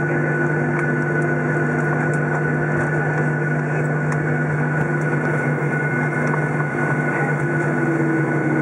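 Cabin noise of a Boeing 737 taxiing after landing, heard inside the cabin over the wing: the jet engines at idle give a steady low hum with a constant thin higher whine above it.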